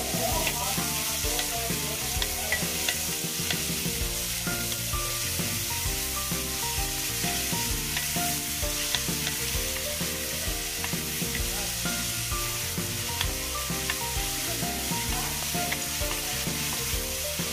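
Sliced onions and green chillies sizzling in hot oil in a metal kadai, stirred with a wooden spoon that now and then scrapes and taps against the pan. The sizzle is steady, as onions are sautéed at the start of cooking.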